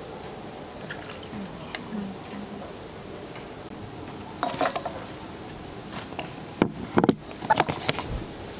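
Sliced green peppers scraped off a wooden chopping board into a stainless steel bowl of chopped vegetables: a short rustling slide about halfway through, then several sharp clunks and clinks near the end, over a steady background hiss.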